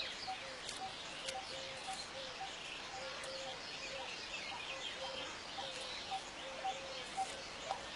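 Birds chirping and chattering, with a low call repeating evenly, about three times every two seconds.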